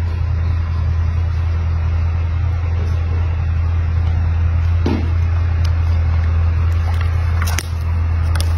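A steady, loud low hum like an idling engine, with a few faint clicks over it and a brief low sound about five seconds in.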